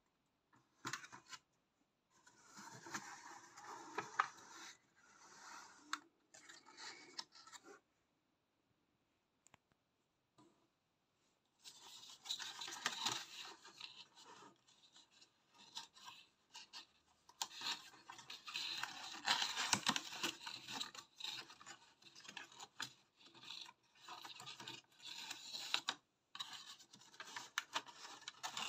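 Cardboard window box and plastic packaging of a die-cast model bus being handled and opened: irregular scraping and rustling, with a quiet spell of about three seconds about a third of the way in.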